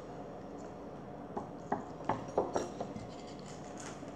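Small clicks and crackles of a child eating and handling a piece of puri fried bread with kimchi, a quick run of them from about a second and a half in.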